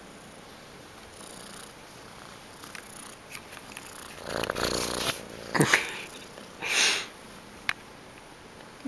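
Young gray tabby kitten purring close to the microphone, loudest about four seconds in when its face comes right up to it. A few short, breathy bursts and a brief falling cry come near the middle.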